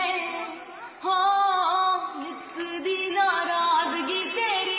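A young woman singing a Punjabi song unaccompanied in a strong voice, her pitch sliding through ornamented phrases, with a brief pause for breath just before a second in.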